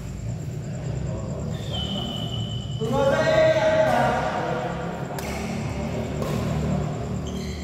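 Badminton rally in a large, echoing indoor hall: rackets strike the shuttlecock with sharp clicks a few times. There is a brief high squeak about two seconds in, and a voice rises over the hall's din from about three seconds in.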